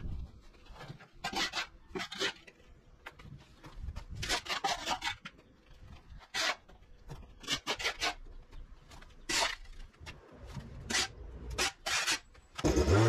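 Steel shovel scraping across dirt-covered paving in short strokes at irregular intervals, about a dozen in all. Background music comes in near the end.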